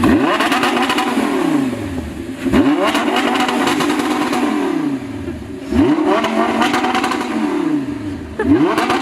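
Audi R8's 5.2-litre V10 free-revving through an Armytrix titanium valvetronic exhaust: four sharp, loud blips, each rising quickly and falling back to idle over about two seconds. The exhaust is not in sports mode.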